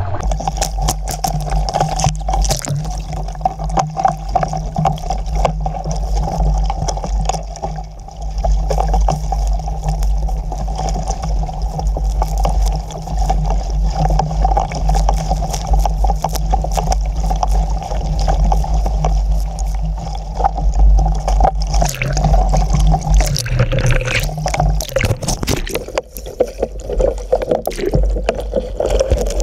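Wind rumbling hard on the microphone of a small Sabot sailing dinghy in choppy water, with water slapping and splashing against the hull and spray coming aboard. Near the end the boat heels over into the water and water gurgles and splashes close by.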